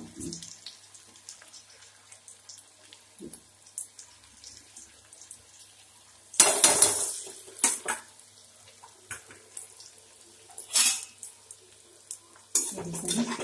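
Potato and gram-flour batter rubbed through a flat metal grater into very hot oil in a metal kadhai: the oil sizzles in irregular bursts as strands drop in, the loudest about six and a half seconds in, with the grater clinking and scraping against the pan.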